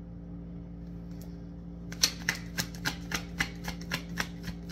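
A deck of tarot cards being shuffled by hand: a quick run of crisp card slaps, about four a second, starting about two seconds in. A steady low hum runs underneath.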